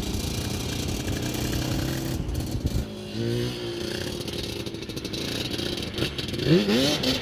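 Yamaha Banshee's 390cc twin-cylinder two-stroke engine with Pro Circuit expansion pipes, running low and then revving, with a short rise in pitch about two seconds in and a sharper climb near the end.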